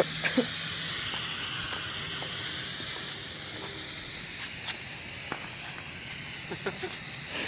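Black Cat Camo Smoke firework hissing steadily as it burns and vents smoke, easing off slightly after about three seconds.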